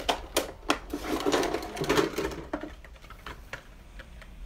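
Rummaging through makeup items: three sharp clicks in the first second, then about two seconds of busy clattering and rustling that dies down after the middle.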